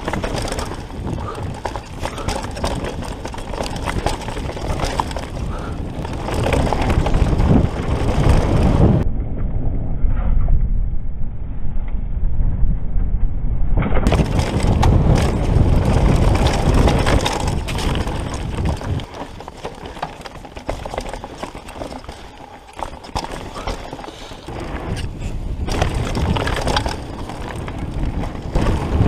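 Downhill mountain bike descending a dry dirt trail: a steady rush of wind buffeting the rider's camera microphone, with tyres crunching over dirt and stones and the bike knocking and rattling over bumps. It gets quieter for a few seconds in the second half, then loud again near the end.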